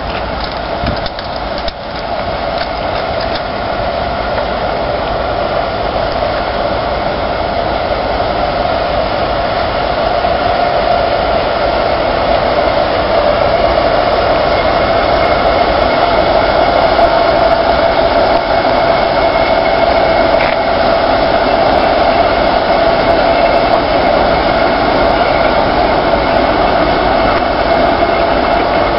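ST44 (Soviet M62) diesel locomotive's two-stroke V12 engine running as it moves slowly, a steady din with a high whine over it, growing louder over the first ten seconds or so as the locomotive comes closer and then holding steady as it passes close by.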